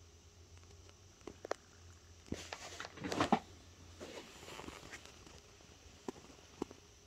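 A quiet room with a low steady hum, a few soft clicks, and a brief rustle of fabric and phone handling about three seconds in as the phone is lowered onto the bedspread.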